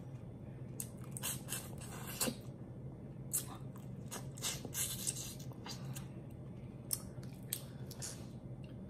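Close-up wet eating sounds of a person sucking and chewing boiled lobster pieces and shells, heard as irregular clicks and smacks.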